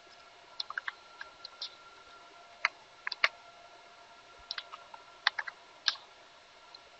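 Computer keyboard being typed on: about fifteen short, irregular key clicks spread over several seconds, with pauses between small runs, over a faint steady hum.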